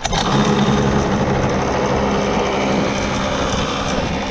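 Small gas engine of a red mini kart running at a steady throttle, heard close up from beside the engine and exhaust. It comes up suddenly at the very start and then holds an even pitch. The carburetor needs cleaning after the kart sat about a year, which the riders take for the cause of its bogging.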